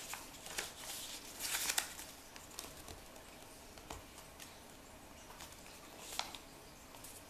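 A sheet of origami paper being folded and creased by hand: scattered soft rustles and crinkles, with a short flurry of them between one and two seconds in and a sharper crinkle about six seconds in.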